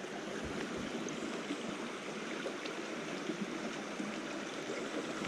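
Shallow, rocky river water running over stones: a steady rush and trickle.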